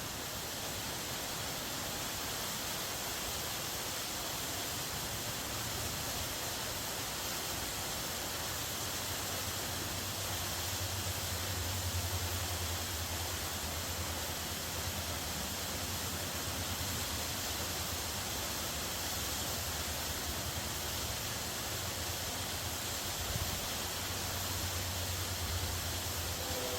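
Waterfall's steady rushing water: an even hiss with a low rumble underneath that swells around the middle.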